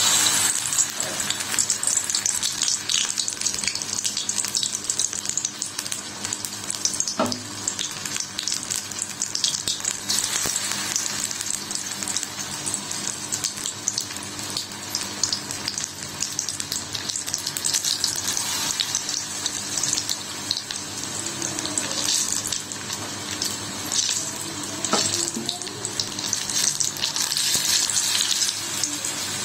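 Batter-coated cauliflower pakoras deep-frying in hot oil in a kadai, a steady dense sizzle and crackle as more pieces go into the oil. Two light knocks stand out, about seven seconds in and again later.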